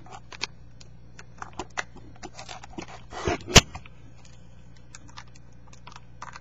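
Small plastic clicks and rustles of a Seagate FreeAgent external hard drive and its USB cable being handled and put back together, with a scrape and one sharp click about three and a half seconds in. A steady low hum sits underneath.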